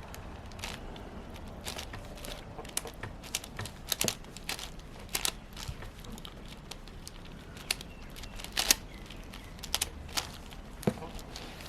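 Plastic clicks and clacks of a 6x6 Rubik's cube's layers being turned by hand, irregular and spaced out, a few louder ones near the end.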